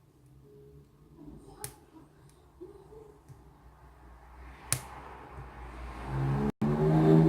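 Lock pick and tension wrench working inside a Kryptonite padlock: faint scratching and ticking, with two sharp clicks. Near the end a low hum is the loudest sound.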